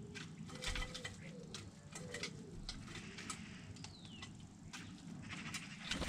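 Common starling at a hanging seed feeder: a run of sharp clicks, with a falling whistle about four seconds in and a high whistle near the end, over lower wavering bird calls in the background.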